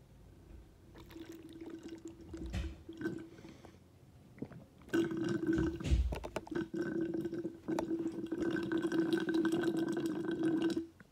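Water bubbling and gurgling in a glass container, with a steady hum underneath. A fainter spell comes first; then it runs louder from about five seconds in and cuts off suddenly near the end.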